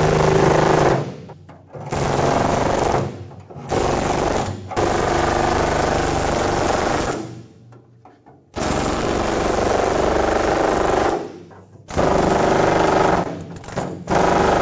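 Power tool cutting through the sheet metal of a car's trunk floor pan, run in repeated bursts of one to three and a half seconds with short pauses between, a rapid hammering or sawing chatter.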